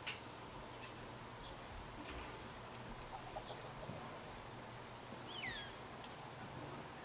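Faint outdoor garden ambience with scattered high chirps of small songbirds and one clearer call about five seconds in that slides downward in pitch. There is a single sharp click at the very start.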